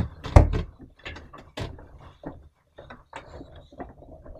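A thump about half a second in, then scattered small clicks, knocks and rustles from children moving about a bedroom to hide.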